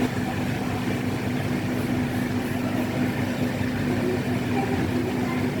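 Shukaku SKUMF-50 mini ceiling fan running at a steady speed: a constant motor hum with one steady tone over a low whooshing rumble.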